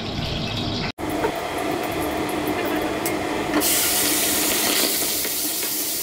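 Octopus frying in hot oil in a wok: a steady hiss that jumps suddenly to a louder, brighter sizzle about three and a half seconds in.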